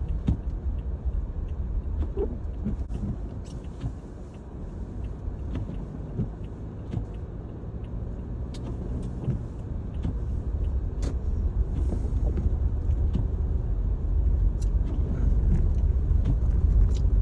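Car driving on a snowy road, heard from inside the cabin: a steady low rumble of tyres and engine with scattered light clicks, getting louder over the last few seconds.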